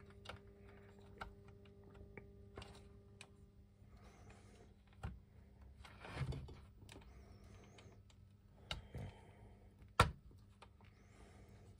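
Faint, scattered clicks and knocks of hard plastic as a vintage G.I. Joe Tiger Cat toy vehicle is handled and a repaired part is pressed on for fit, with a sharper click about ten seconds in.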